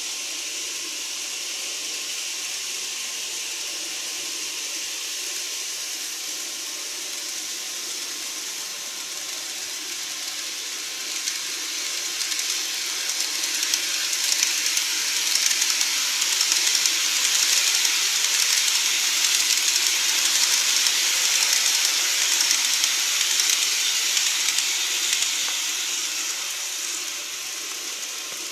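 N-gauge TOMIX model of a Rinkai Line 70-000 series train running on model track: a steady hiss of wheels and motor. It swells about halfway through as the train comes past close by, then fades near the end.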